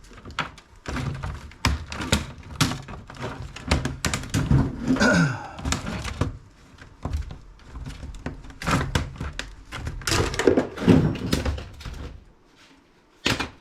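Plastic and metal laptop parts being handled and set down, a busy run of knocks and clatters, with a downward-sliding scrape about five seconds in. It eases off shortly before the end, with one last knock.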